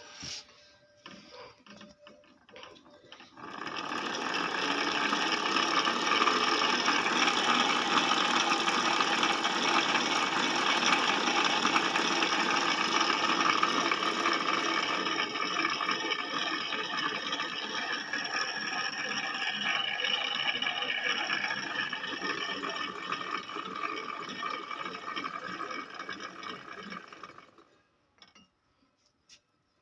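A rewound Usha ceiling fan motor is switched on for a test. It starts up a few seconds in, runs steadily for about twenty-four seconds, and cuts out near the end.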